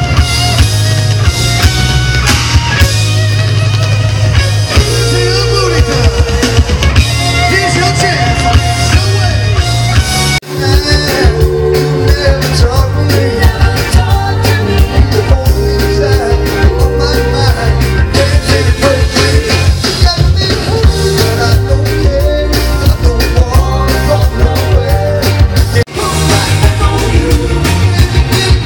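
Live rock band music with a singer, in three stretches broken by abrupt cuts, about ten seconds in and near the end.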